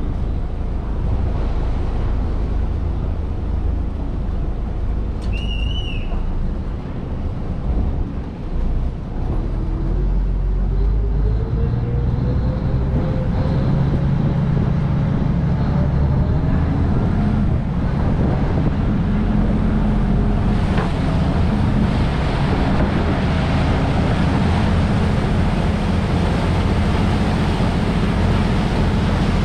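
Chao Phraya Express Boat's engine running steadily under water and wind noise. Its pitch slowly rises during the middle part as the boat picks up speed. A brief high tone sounds about five seconds in.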